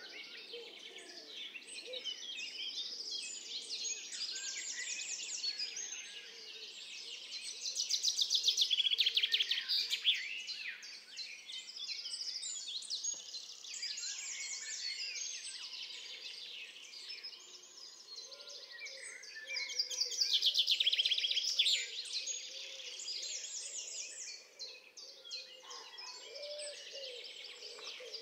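Many small birds chirping and singing in quick, overlapping phrases, louder about eight seconds in and again about twenty seconds in.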